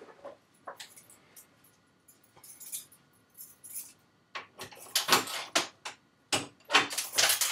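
Irregular jangling and rustling clatter, like keys and handling while someone moves about, in scattered bursts that get louder in the second half. The bike horn is not sounding.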